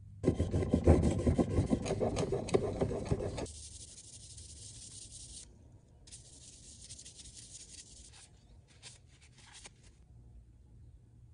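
Steel chisel in a honing guide pushed back and forth on an abrasive sharpening surface: a rough, gritty scrape for about three seconds. Fainter rustling and light handling noise follow as the chisel is taken out of the guide and wiped with a cloth.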